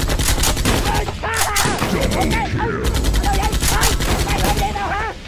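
Rapid automatic gunfire, a near-continuous rattle of many shots a second, with shouting voices over it.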